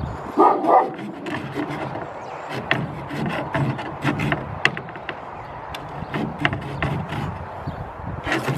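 Small folding saw blade of a 91mm Victorinox Ranger Swiss Army knife cutting wood, rasping back and forth in uneven strokes. Two short, loud yelping sounds come close together about half a second in.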